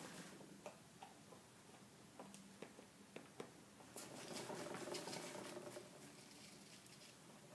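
An animal digging and scratching in the soil of a potted plant while burying nuts: faint, scattered scratches and clicks, thickening into a stretch of steady scrabbling and rustling about four seconds in.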